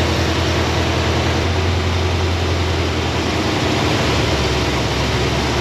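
Ford 351 Windsor V8 idling steadily on a newly fitted HEI distributor while the distributor is turned to set the ignition timing to 15 degrees.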